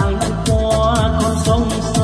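A Vietnamese song played loudly through a karaoke amplifier and loudspeaker system, with a quick steady beat under the melody.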